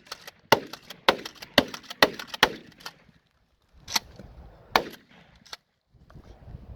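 Remington 870 Marine Magnum 12-gauge pump shotgun firing at water-filled pumpkins: a quick run of sharp cracks over the first three seconds, then two more about a second apart.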